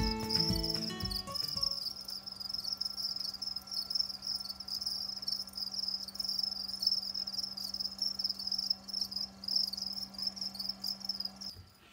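European house crickets (Acheta domesticus) chirping continuously in a high pitch, stopping just before the end. Background music fades out in the first second or two.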